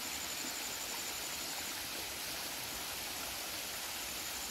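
Steady rush of a small stream flowing over its muddy, rocky bed, an even hiss with no separate events.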